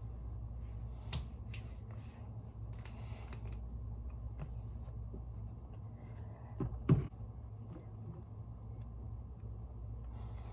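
Soft clicks and short rustles of small objects being handled, with one louder knock about seven seconds in, over a steady low hum.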